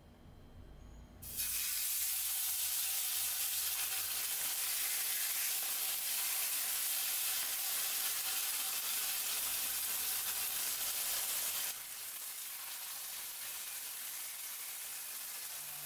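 Teriyaki-marinated chicken pieces frying in hot oil in a nonstick pan: a loud sizzle starts suddenly about a second in as the chicken hits the oil and runs steadily, dropping to a softer sizzle for the last few seconds.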